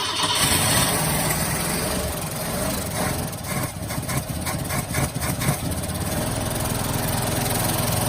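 1968 Ford Torino engine turning over on a start attempt, coming in suddenly loud and running unevenly, with a pulsing stretch in the middle at about five beats a second.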